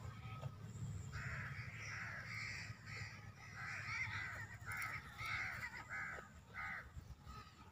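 A bird calling in a quick series of about ten short calls, over a low rumble.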